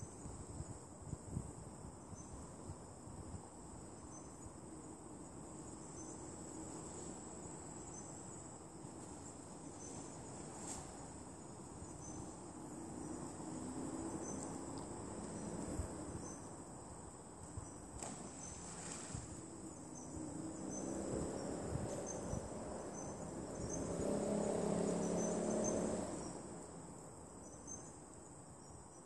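Insects singing in a steady high buzz, with a faint chirp repeating about once a second. A lower droning sound swells and fades twice, loudest for about two seconds near the end.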